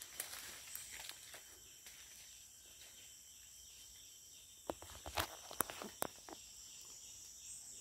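Footsteps crunching through dry leaf litter and undergrowth on a forest floor, with a cluster of sharper cracks about five seconds in. A steady high drone of forest insects runs underneath.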